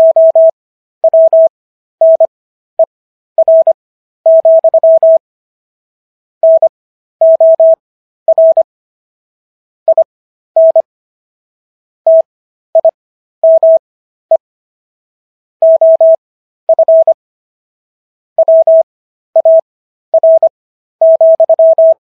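Morse code sent as a single steady beep keyed on and off in short dots and longer dashes, with letters sent fast and extra-long gaps between them (Farnsworth spacing: 15 words per minute overall, characters at 25). It spells out the text of the Third Amendment of the US Constitution.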